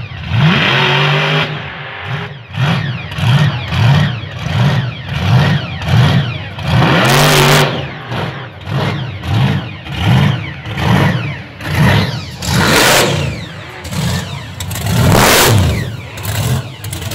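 A Pontiac Firebird drag car's engine is revved in short, quick blips, about two a second, each falling back before the next. It is opened up into a few longer, higher revs about a third of the way in, again near the three-quarter mark, and shortly before the end.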